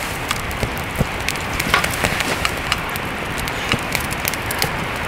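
Wood fire crackling in a fire pit, with many sharp pops scattered through a steady hiss.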